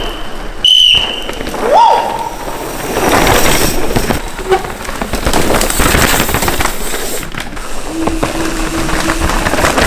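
Downhill mountain bikes rattling and clattering fast over a dirt trail, tyres crunching on loose soil and parts chattering in dense rapid clicks, louder from about three seconds in. A short shrill whistle sounds in the first second.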